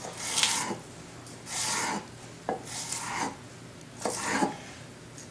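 A chef's knife slicing stacked leek halves into julienne strips on a wooden cutting board: a series of short scraping strokes, about one a second, each the blade drawing through the leek and across the board.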